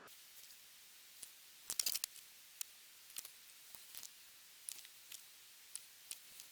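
Faint, irregular sharp clicks and snips, about one or two a second, with a quick cluster about two seconds in: small plastic model-kit parts and hobby tools being handled.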